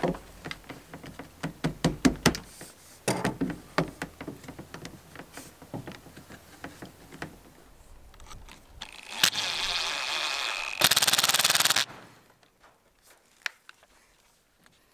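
Hard plastic clicks and knocks as PVC pipe fittings are pushed and twisted together by hand. About nine seconds in, a Ryobi ONE+ HP cordless driver runs a screw through a metal pipe strap for about three seconds, louder and harsher in its last second.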